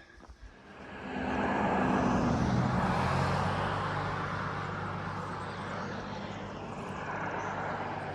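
A road vehicle passing on the highway: engine hum and tyre noise swell about a second in, are loudest around two to three seconds, then slowly die away.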